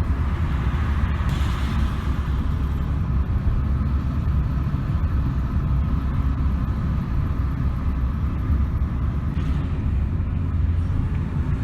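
Road vehicle driving: a steady, loud low rumble of engine and road noise.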